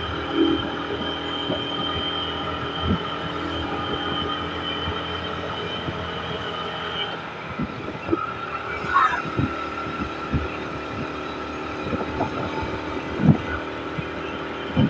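Vehicle travelling along a road: steady road and engine noise with irregular low thumps, and a steady high whine that stops about halfway through.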